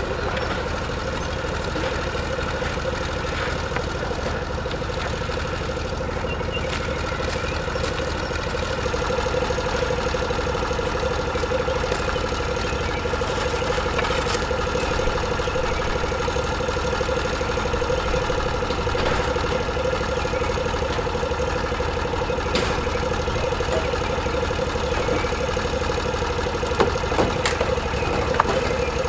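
Freshly rebuilt 18 horsepower Briggs & Stratton engine of an Argo Bigfoot 6x6 idling steadily, a little louder from about a third of the way in. A few sharp wooden knocks near the end as the machine starts up the wooden loading ramps.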